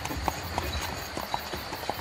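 Horse-drawn carriage: the horse's hooves clip-clopping in uneven sharp knocks, a few a second, over a steady low rumble.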